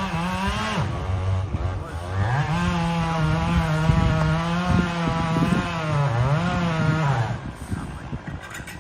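Two-stroke chainsaw running at high revs, bogging down under load twice and picking back up, then letting off and falling away about seven seconds in.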